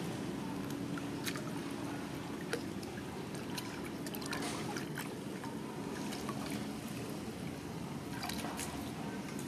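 Young macaques splashing and sloshing in a large clay basin of muddy water: scattered small splashes and drips come in a few clusters, over a steady low background rumble.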